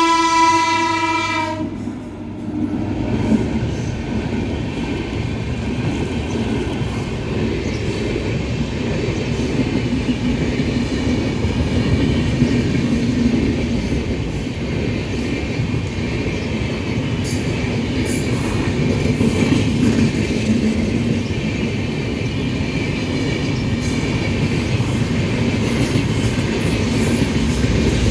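An Indian Railways WAP-7 electric locomotive sounds a long horn note, which cuts off about two seconds in. The express train then rolls by with a steady rumble and the clatter of wheels over rail joints.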